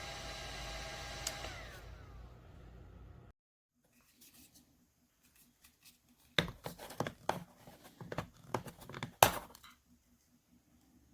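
Small electric personal fan running at its highest speed with a steady whir and motor whine. About a second in, a click switches it off and the whine slides down as the blades spin down. A few seconds later come a cluster of sharp clicks and knocks from the fan being handled, the loudest near the end.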